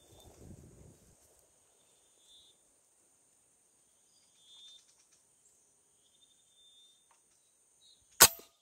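A single rifle shot, sharp and loud, near the end. Before it, faint high chirping in the background and low handling rustle in the first second.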